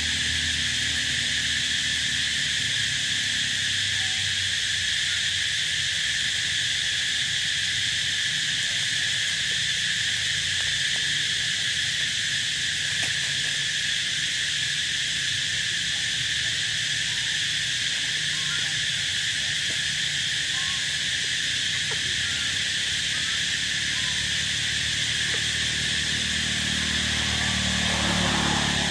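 Steady, high-pitched drone of insects calling in chorus over a low steady rumble, with a few faint short chirps scattered through.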